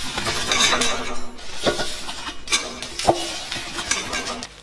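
Fried cauliflower pieces being tipped off a paper-towel-lined plate into a stainless steel kadai of gravy: paper rustling, pieces dropping in, and a few sharp clinks of the plate against the pan.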